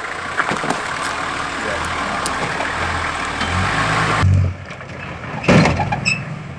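Four-wheel-drive engine working under load as the vehicle climbs over rocks, its revs rising to a peak about four seconds in before dropping away suddenly. About a second later comes one short, loud knock or scrape, which fits the vehicle striking a rock with its slider or rear bar.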